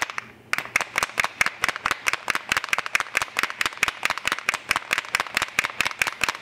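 Small paint bottle shaken hard, rattling with rapid, even clicks about seven or eight times a second, with a brief break just after the start.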